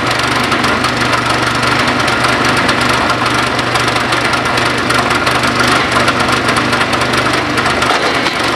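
Wood splitter's small engine running steadily and loudly, with a brief change in its low hum near the end.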